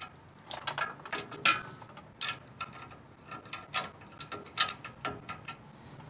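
The star-wheel adjuster of a GM drum-in-hat parking brake being turned with a hand tool, clicking irregularly about a dozen times and stopping a little before the end. The shoes are being backed off because they were set too tight against the inside of the rotor.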